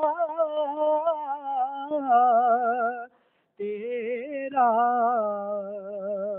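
A single voice singing a naat unaccompanied, drawing out long notes with a slow waver. It breaks off for about half a second a little after three seconds in, then comes back on a lower held note.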